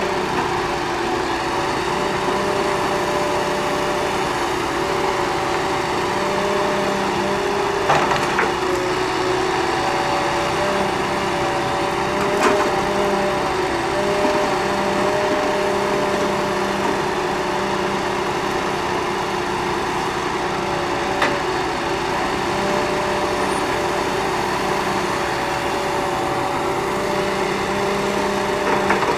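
Ponsse Buffalo Alpine forwarder's 286 hp diesel engine and crane hydraulics running steadily under working load as the crane handles logs. A few sharp wooden knocks sound as logs strike one another.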